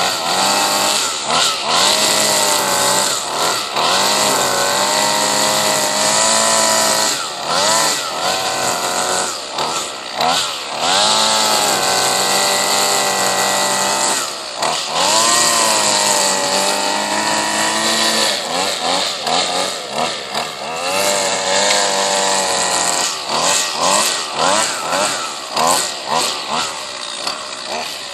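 Husqvarna 128LD string trimmer's small two-stroke engine running hard while edging grass, its pitch dropping and climbing again each time the throttle is eased off and reopened, many times over.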